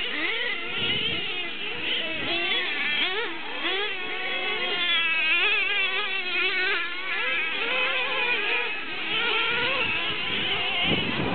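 Several radio-controlled racing trucks' small high-revving motors buzzing and whining together, their pitches rising and falling continuously as the trucks accelerate, brake and jump around the track.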